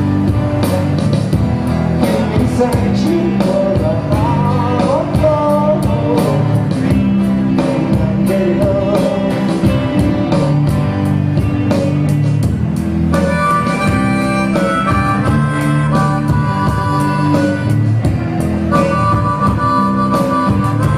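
Live rock band playing, with drums, electric bass and guitar. About two-thirds of the way through, a harmonica comes in playing held chords.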